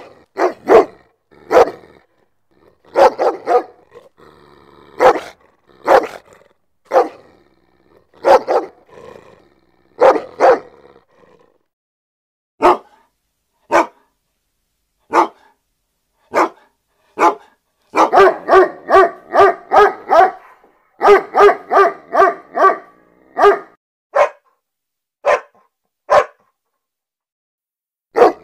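Dog barking, in loud single and paired barks about a second apart, then a fast run of barks at about three a second for several seconds past the middle, then a few spaced barks again.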